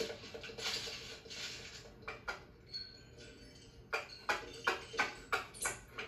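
Film sound effects of small plastic toys stepping on a hardwood floor, heard through a TV's speakers: soft scuffing steps at first, then a quick run of about six light taps, about three a second, from about four seconds in.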